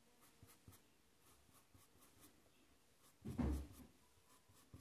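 Faint scratchy strokes of a flat paintbrush pulling fabric paint across cotton cloth, a few short strokes a second. A brief louder thump about three seconds in.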